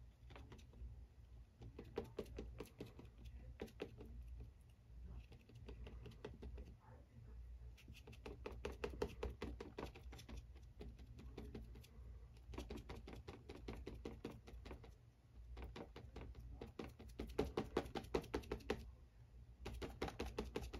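Flat paintbrush tapped and dabbed rapidly against paper, bristles pattering in several quick runs of many small taps with short pauses between.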